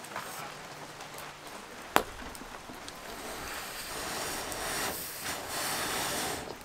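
Wood fire burning under a hanging mess tin: one sharp pop about two seconds in, then a steady hiss that swells from about three seconds.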